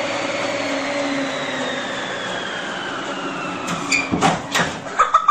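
A treadmill's motor running with a whine that slowly falls in pitch as the belt slows, then several knocks and thumps near the end.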